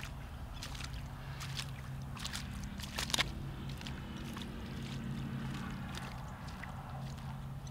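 Alligator snapping its jaws on a redfish carcass in the water, with a few sharp snaps and splashes, loudest about three seconds in. Under it runs a steady low motor hum.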